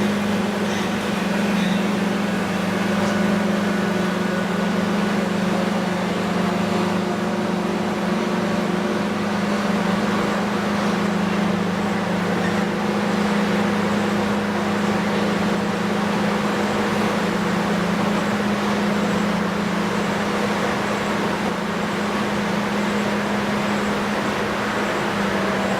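A motor running steadily, with a constant low hum over a wash of noise.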